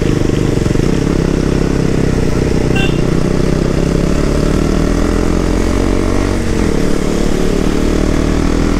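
Motorcycle engine running steadily at cruising speed, heard on board the bike, with its pitch shifting slightly about two-thirds of the way through. Under it runs a steady hiss of wind and tyres on the wet road.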